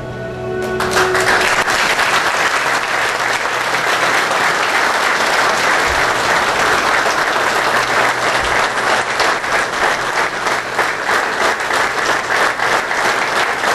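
An audience applauding at length, starting about a second in and holding steady, the claps becoming more evenly spaced in the second half.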